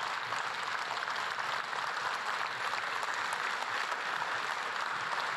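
Congregation applauding steadily in a large church auditorium.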